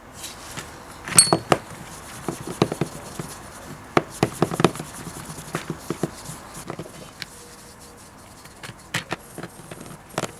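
Irregular knocks, clicks and clinks of metal parts and tools being handled on a workbench, with one sharper ringing metallic clink about a second in.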